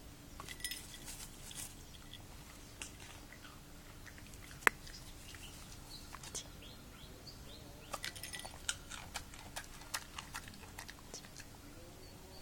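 A dog chewing beans: faint, scattered crunching clicks, with one sharp click a little under five seconds in and a busier run of clicks from about eight to eleven seconds in.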